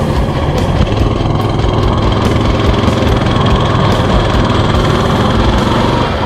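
Coleman CT200U-EX mini bike's 196cc single-cylinder four-stroke engine running steadily while the bike is ridden along a rough dirt trail.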